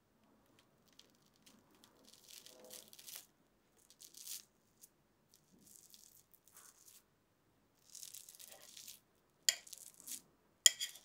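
Quiet kitchen handling of the food: short scraping and rustling strokes, then two sharp clicks near the end, the loudest sounds.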